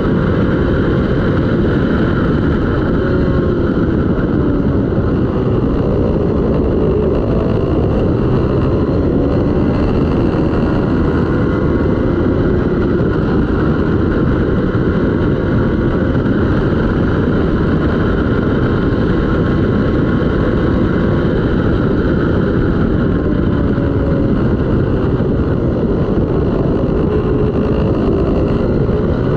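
Twin-cylinder racing motorcycle engine running hard, its pitch rising and falling as it accelerates and shifts, under a constant heavy rush of noise.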